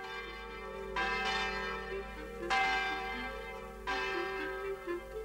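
Church bell tolling, struck three times about a second and a half apart, each stroke ringing on as it fades. Softer, lower short notes step along beneath the strokes.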